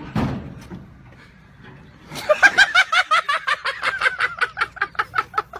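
A thump at the start, then, from about two seconds in, a long run of rapid high-pitched laughter in short, even pulses, about seven or eight a second.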